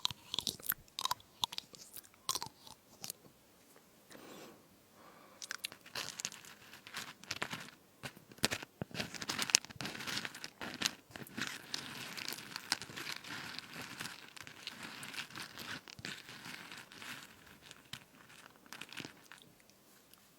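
Crunchy fruit crisps being bitten and chewed, a run of sharp crackling crunches that grows denser in the middle and thins out near the end.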